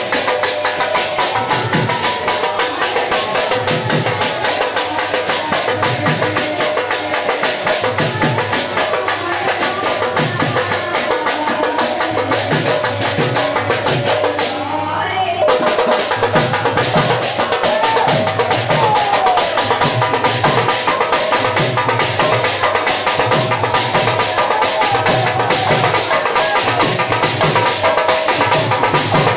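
Live Sambalpuri kirtan music: dhol drums beating a fast, steady rhythm with large brass hand cymbals clashing, and a voice singing over a microphone. About halfway through the sound briefly dips, then comes back a little louder.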